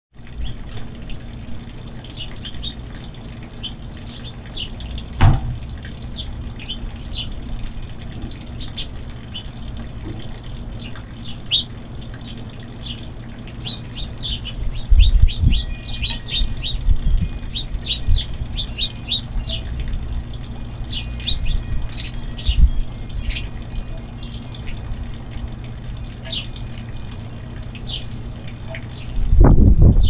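A flock of finches chirping, many short high calls overlapping throughout, over a steady low rumble. Several low thumps break in, the strongest about five seconds in, around the middle and just before the end.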